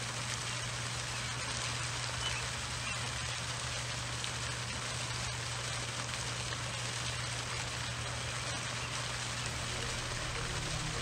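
Display fountain's water streams falling and splashing into the pond as a steady, rain-like hiss, with a low steady hum beneath.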